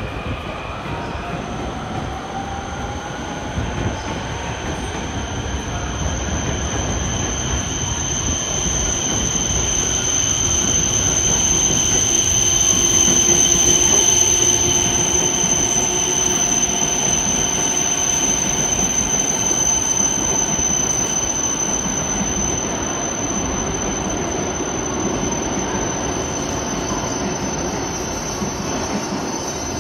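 Hokuriku Shinkansen E7/W7-series bullet train pulling slowly into a platform to stop. A low rumble of the passing cars carries a steady high-pitched squeal, and the sound is loudest about halfway through as the front of the train passes, then gradually fades.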